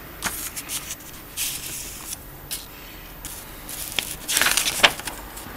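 Paper instruction booklet being handled and its pages turned, with several short rustles and crinkles. The loudest flurry comes about four and a half seconds in.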